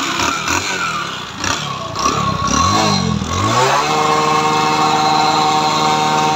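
Bajaj Discover 100's single-cylinder four-stroke engine running and being blipped up and down, then revved up and held at high revs for the last few seconds. The engine has a noise problem that teardown traces to a worn piston, a scored cylinder and a worn connecting rod.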